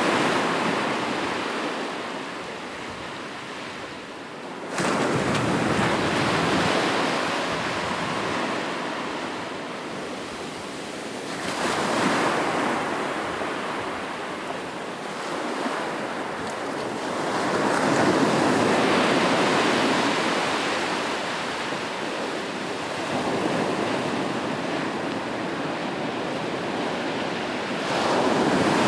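Sea waves breaking and washing up the shore, the rushing surf swelling and falling away in several slow surges, one coming in suddenly about five seconds in.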